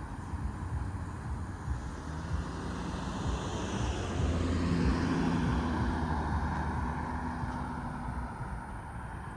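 A car driving slowly past, its engine hum and tyre noise growing louder toward the middle and then fading away.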